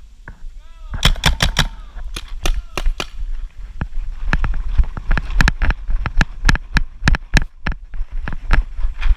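Paintball markers firing: sharp pops in quick bursts, about five a second at first, then more irregular shots.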